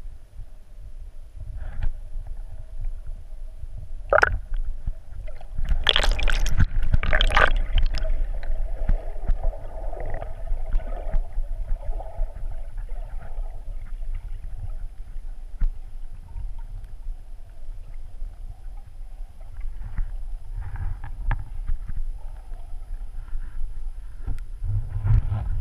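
Muffled underwater rumble of water moving over a camera housing as a freediver descends. Around six to eight seconds in comes a louder stretch of rushing, bubbling water noise.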